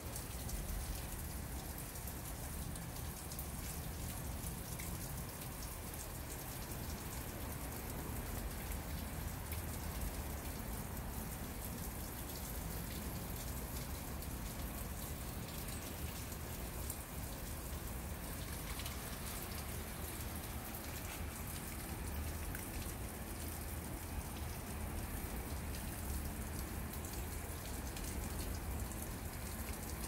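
A thin trickle of water falling from a drainpipe into a shallow pool, a steady patter of small splashes, with a low rumble underneath.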